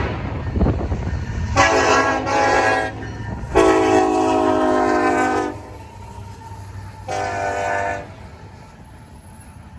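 Air horn of an EMD SD70M-2 diesel locomotive sounding a chord in a series of blasts: two short toots about a second and a half in, a long blast of about two seconds, then a short blast near the end. The low rumble of the train runs beneath.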